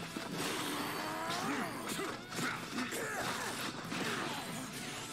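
Sound effects from an animated fight scene: crashing impacts and hits, mixed with gliding, swooping sounds.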